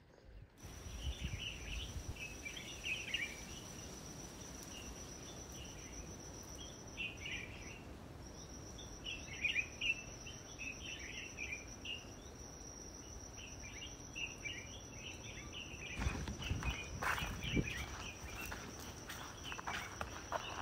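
Bush ambience: an insect's steady high-pitched trill runs throughout, with scattered bird chirps over it. From about sixteen seconds in, knocks and rustling join in.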